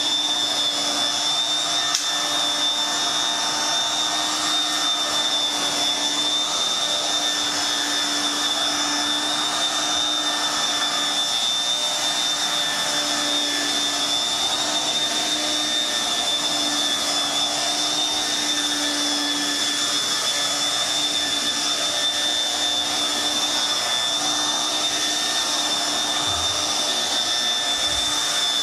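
Sears Kenmore Kwik Sweep electric stick vacuum running steadily on high speed: a high, even whine over the rush of its motor and fan.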